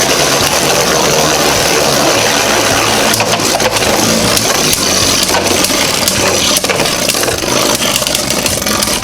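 Two Beyblade Burst spinning tops with 3D-printed metal upgrades whirring in a stadium, with rapid clicking and clashing hits as they collide, more often from about three seconds in.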